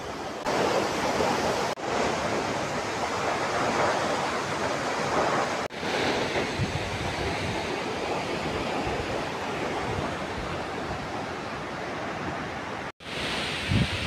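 Steady rushing of a 150-metre waterfall pouring down onto rocks. It drops out briefly three times, about two, six and thirteen seconds in.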